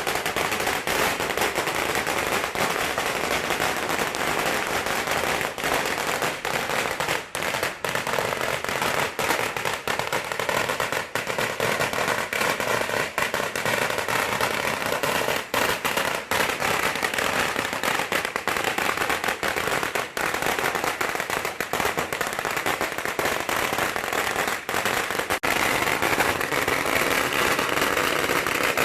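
A 108-foot string of red firecrackers going off in one continuous, dense rattle of bangs at a steady loudness.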